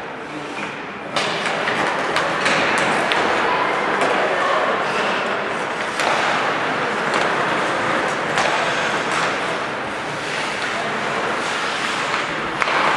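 Ice hockey play in a rink: skates scraping the ice and sticks and puck clacking, with many sharp clicks and knocks, over the voices of the arena crowd. The noise rises suddenly about a second in as play starts from the faceoff.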